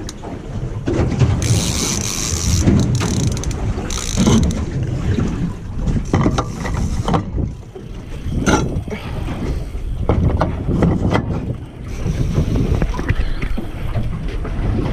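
Fishing reel being cranked with gear whirring and ratcheting clicks as a hooked gummy shark is fought on a bent rod. Steady wind rumble on the microphone underneath.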